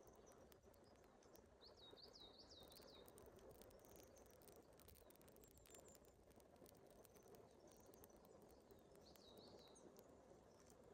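Near silence with a faint outdoor hiss; a small bird gives a short run of quick high chirps about two seconds in and again near the end.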